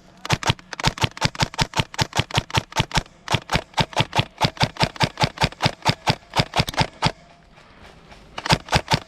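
Airsoft gun firing a long string of sharp shots at about five a second. The shots break off about seven seconds in and start again shortly before the end.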